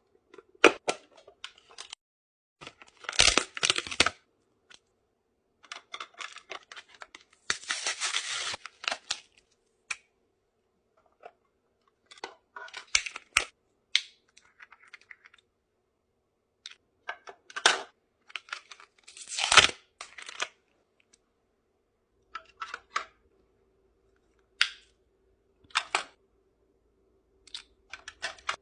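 Makeup products and their packaging being handled in short bursts of rustling, crinkling and tearing, with sharp clicks and taps as items are unwrapped and set in place, and brief pauses between them. A faint steady hum runs underneath.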